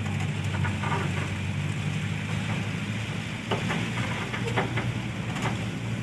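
Engine and road noise inside a moving car: a steady low drone with a hiss of tyres on the road. A few light knocks or rattles come through in the second half.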